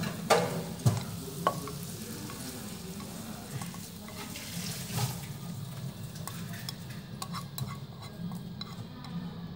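Chopsticks scraping and tapping against a nonstick frying pan as stir-fried food is pushed out onto a plate. There are a few sharp knocks in the first second and a half, then softer scrapes and clicks over a steady low hum.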